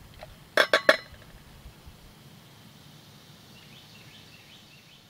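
Three quick metallic clinks about half a second in: metal tongs knocking against a steel pan of charcoal and wood chips. Faint bird chirps follow over a steady outdoor background.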